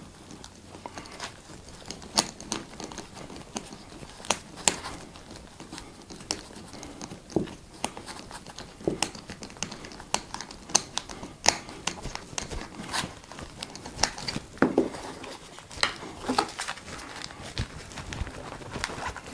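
A screwdriver working a screw through a rubber-padded foot strap: scattered, irregular small clicks and short scrapes of the metal tip on the screw, mixed with hands handling the strap.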